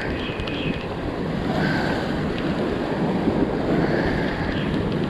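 Ocean surf washing steadily, with wind buffeting the microphone.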